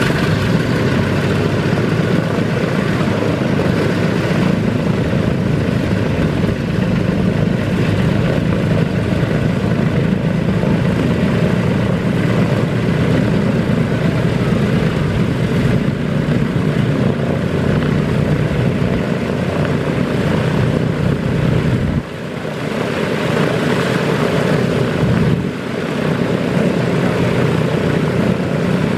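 Douglas DC-3's radial engine running steadily just after startup, one engine only, the other still stopped. The propeller drone dips briefly twice near the end.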